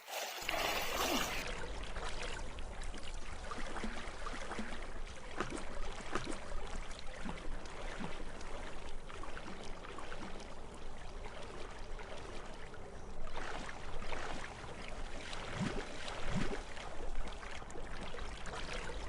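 Slowed-down swimming water sounds: steady sloshing and trickling with scattered small splashes over a deep low rumble.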